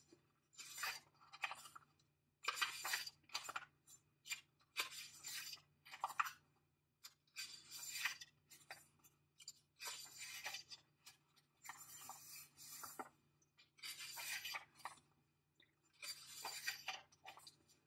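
Paper pages of a paperback guidebook being leafed through and pressed flat by hand: a string of short, soft paper rustles, roughly one a second, with brief gaps between.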